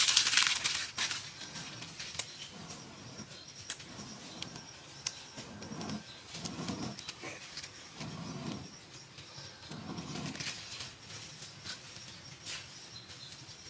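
Dry leaves rustling as they are handled, then a person blowing on smouldering embers in a series of soft breathy puffs, one every second or two, to kindle a cooking fire, with a few small twig clicks.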